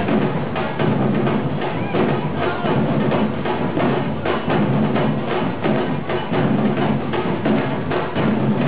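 Music with busy percussion: rapid, dense knocks and drum hits over a steady lower accompaniment.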